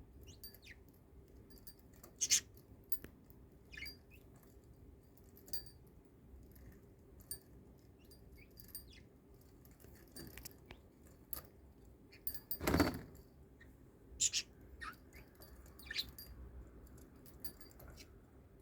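Budgerigar making a few short, soft high chirps among scattered small clicks and light metallic jingles, with one louder, short rush of noise about thirteen seconds in.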